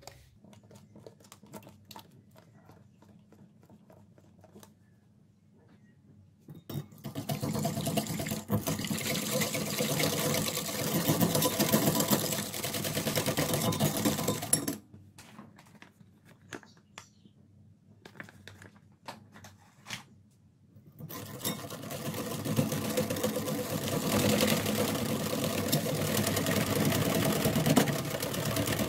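Metal wire whisk beating a soapy shower-cream mixture in a glass bowl: rapid clattering strokes of the whisk against the glass as the liquid is whipped into foam. There are two runs of whisking about eight seconds each, starting about seven seconds in and again about twenty-one seconds in, with a pause between. Before them come a few faint clicks.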